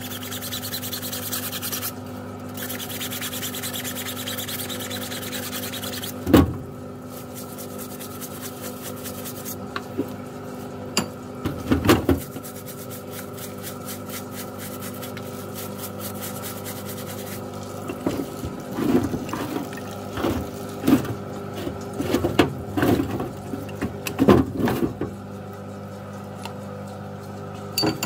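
Parts washer pump humming steadily while solvent runs over greasy rotary hammer parts, with rubbing and scrubbing as the parts are cleaned. Occasional knocks of metal parts, a few scattered through the middle and a cluster near the end.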